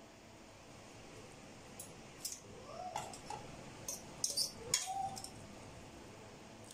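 Metal fork clinking and scraping against a stainless steel pan as spaghetti is lifted out onto a plate. A run of light clinks starts about two seconds in, some with a short metallic ring, and the loudest come around four to five seconds.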